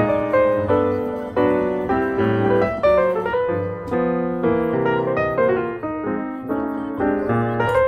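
Background piano music, a run of notes each struck and then fading.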